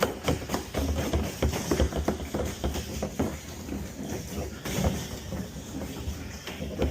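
Water from a water-station fill hose running into a plastic IBC tote, with irregular splashing and knocking.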